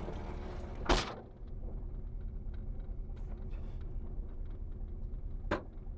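Car engine idling with a steady low rumble, broken by two sharp knocks, one about a second in and one near the end.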